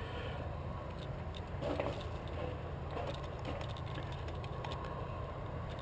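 Outdoor background: a steady low rumble with a faint steady hum and a few faint clicks.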